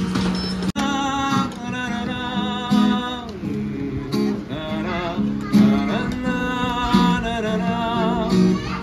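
A song with acoustic guitar strumming under a singing voice whose pitch wavers and glides. The sound cuts out for an instant just under a second in.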